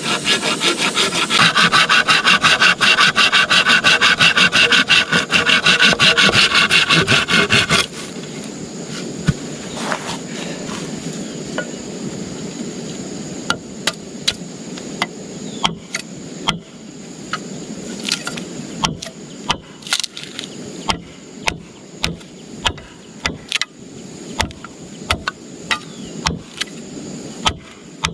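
Hand saw cutting through wood with fast, even back-and-forth strokes. About eight seconds in the sawing stops, and a run of sharp, irregular knocks follows over a faint steady high tone.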